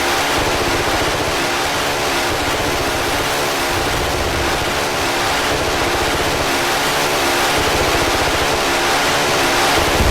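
A loud engine running steadily, a rough continuous drone with a fast low pulsing.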